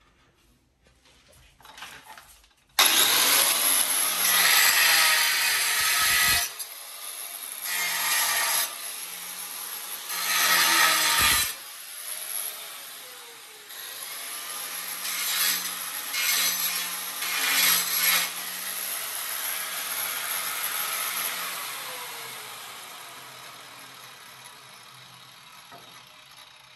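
Harsh scraping and grinding from tile work, starting abruptly about three seconds in, surging several times and slowly fading out near the end.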